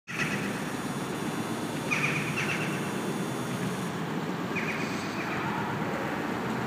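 Birds chirping in short bursts, a few times, over a steady outdoor background rumble.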